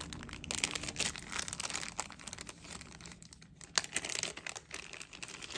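Crinkling and rustling of wrapping being handled, an irregular crackle of many small clicks with a few sharper ones.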